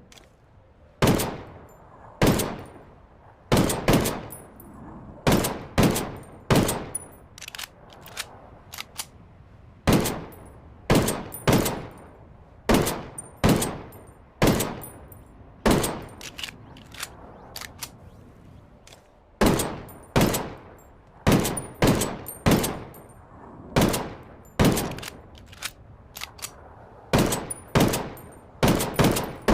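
D-50 handgun sound effect: single gunshots fired one after another, each a sharp crack with a short ringing tail. They come in irregular runs, often two or three close together, with pauses of up to about two seconds between.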